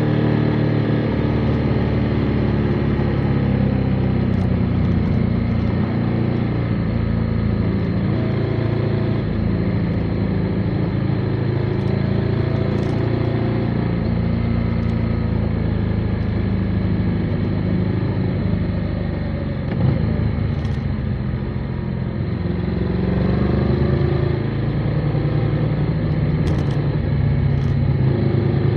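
Motorcycle engine running on the road, its pitch rising and falling with the throttle. It eases off about twenty seconds in, then pulls up again.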